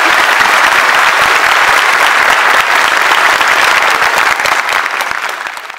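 A large audience applauding: dense, steady clapping of many hands that tapers off near the end.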